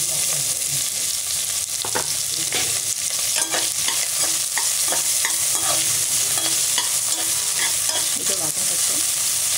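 Chopped ginger, garlic and green chillies sizzling steadily in hot oil in a metal pan, freshly added for sautéing, while a spatula stirs them with repeated scrapes and taps against the pan.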